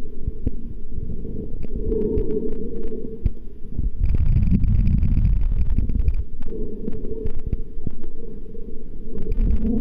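Muffled underwater water noise picked up by a submerged camera: a steady deep rumble with faint clicks, swelling into a louder rush of water about four seconds in for a couple of seconds.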